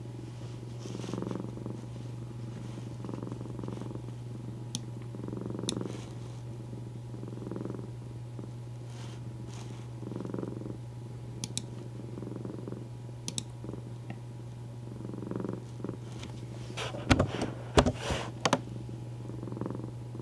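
Domestic cat purring on a lap, in slow swells that rise and fall about every two seconds with its breathing, over a steady low hum. A quick cluster of sharp clicks near the end is the loudest sound.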